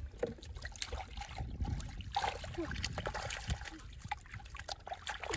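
Hands groping through shallow muddy water and soft mud, making a run of small wet splashes, squelches and trickles.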